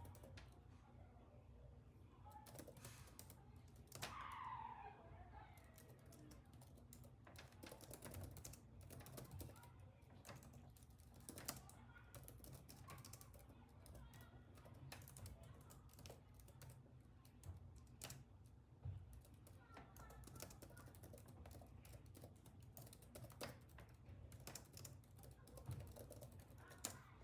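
Faint typing on a computer keyboard, irregular key clicks over a low steady hum, with a short falling squeak about four seconds in.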